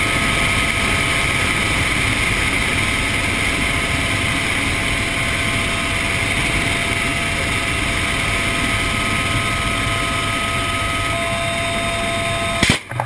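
Cabin noise inside a UH-1Y Venom helicopter in flight with the side door open: a steady rush of wind and engine noise with faint steady whine tones running through it. It breaks off abruptly near the end.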